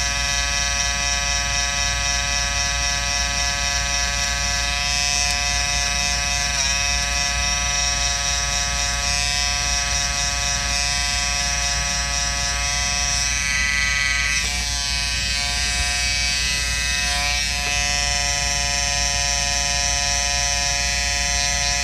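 Wahl Peanut electric trimmer buzzing steadily as its blades are pressed against machine embroidery to shave out the stitches.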